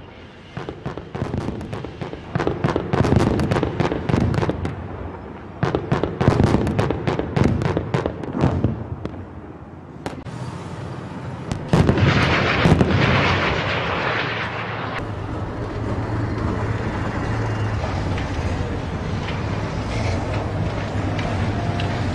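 Rapid bursts of automatic gunfire for roughly the first nine seconds. About twelve seconds in, a loud rush gives way to a heavy wheeled armoured vehicle's engine running with a steady low drone.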